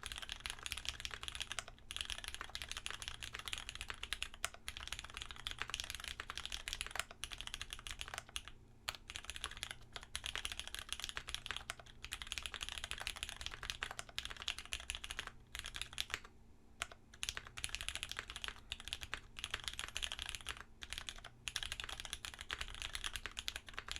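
Continuous fast typing on a Dolch tenkeyless mechanical keyboard with lubed vintage Cherry MX Brown switches on an FR-4 plate, under GMK keycaps: a dense run of keystroke clicks broken by a few short pauses.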